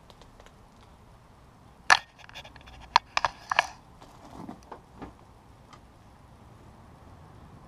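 Sharp metallic clicks and clinks as the front brake caliper of a Honda CBR600 F4 is handled and fitted over the brake disc: one click about two seconds in, a quick cluster of clinks a second later, then a few softer knocks.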